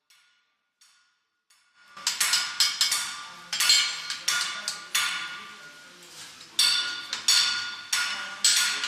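Blacksmith's hammer striking iron on an anvil, each blow leaving a ringing tone. Faint light taps at first, then from about two seconds in, loud blows in an uneven rhythm, some in quick pairs.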